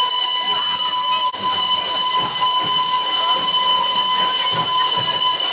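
A steam engine's whistle blowing one long, unbroken blast at a steady high pitch.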